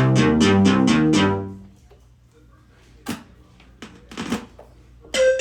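Korg RK-100S keytar synthesizer sounding a preset as a fast flurry of many notes. It is loud for about a second and a half, then fades away. A couple of brief clicks follow, and a new preset's note comes in near the end.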